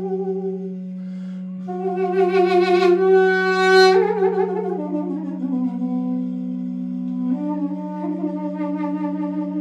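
Armenian duduk playing a slow, ornamented melody over a steady low drone that holds one pitch. A note breaks off briefly, returns with vibrato, rises a step, then glides down stepwise to a long low note and climbs back up a step near the end.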